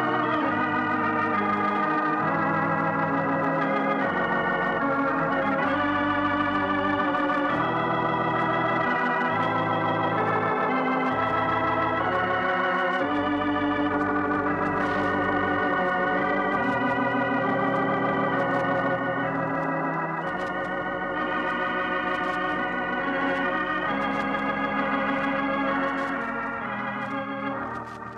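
Organ music playing the programme's closing theme: held chords under a moving melody, changing every second or two, fading out near the end.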